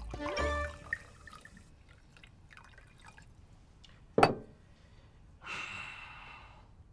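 A sharp glass clink about four seconds in, from a liquor glass or bottle on the table, then about a second of liquor pouring and splashing into a small glass near the end.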